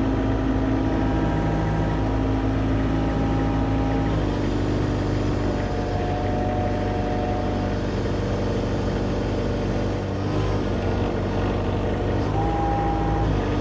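John Deere 50 compact excavator's diesel engine running steadily under load, with a hydraulic whine that shifts pitch several times as the boom and attachment controls are worked.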